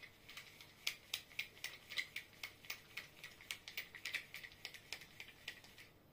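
Reel of a homemade winter pike tip-up turned by hand to wind on nylon line, giving a quick run of light clicks, about four a second.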